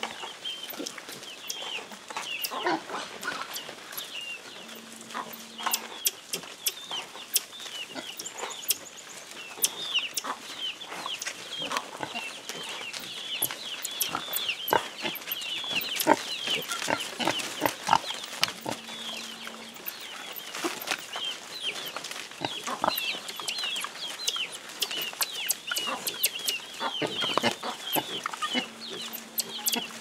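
A troop of common marmosets calling with rapid, high-pitched chirps and twitters, many short calls overlapping and coming thicker after the first few seconds, with scattered clicks and rustles of branches.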